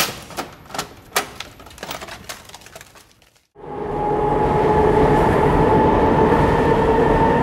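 Scattered sharp clicks and knocks. About three and a half seconds in, after a brief silence, a steady loud rumbling noise with a constant humming tone sets in.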